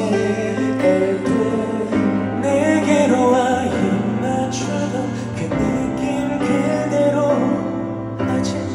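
Live band music: a slow ballad with sustained keyboard chords and bass, and a voice singing a wavering melody over it.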